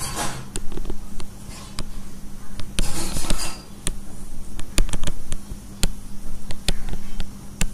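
Irregular sharp taps and clicks, about a dozen, from drawing circles on a computer whiteboard, with two short rustling hisses and a low steady hum underneath.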